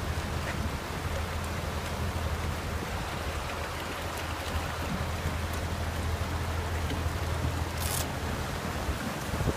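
River water rushing steadily, with the low, even hum of a machine's engine running underneath; a brief hiss about eight seconds in.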